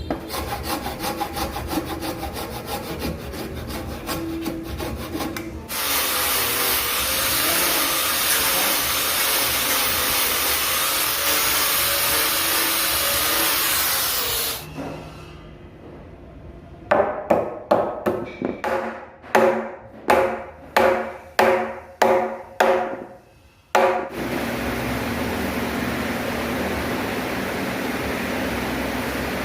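Tools working wood in stages: quick, even strokes, then a long steady hiss, then about ten separate strokes a little over half a second apart, then steady noise again.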